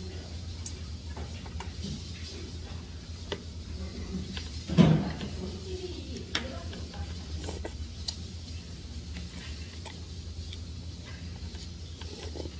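Metal spoon clicking against a plate and bowls while eating, a few light clinks spread through, with one louder knock about five seconds in.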